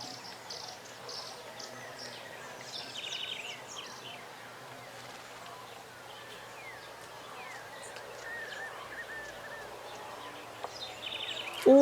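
Outdoor ambience with birds chirping and calling: short chirps, whistled glides and a fast trill repeated twice, over a steady low hiss.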